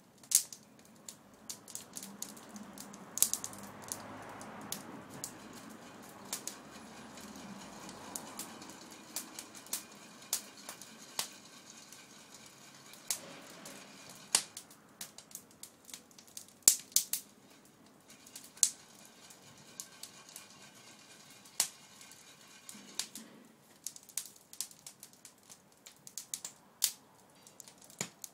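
Wood fire crackling under a pan of roasting chestnuts, with irregular sharp snaps and pops.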